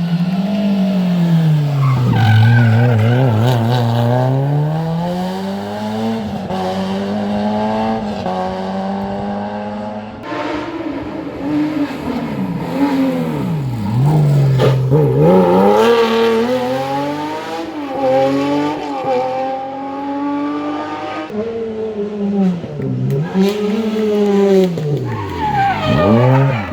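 Historic rally car engines at full race revs, pitch climbing and dropping again and again as the drivers shift gears, lift and brake for corners, with several sharp dips in revs.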